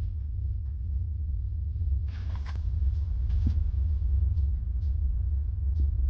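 Low steady rumble of a car moving slowly, with a brief faint hiss about two seconds in.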